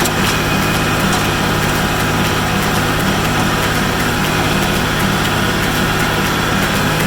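Tractor engine running steadily while powering a small square hay baler.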